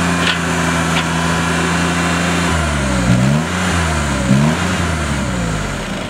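A John Deere 322 garden tractor's three-cylinder Yanmar engine running steadily, then its engine note swings up and down twice as the tractor is driven. Two short high squeaks come in the first second.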